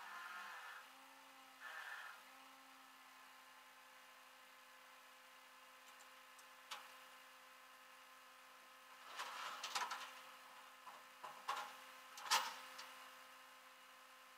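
Faint mechanical sounds over a steady electrical hum: two short whirring spells in the first two seconds, then a cluster of metallic clanks and rattles from about nine to thirteen seconds in.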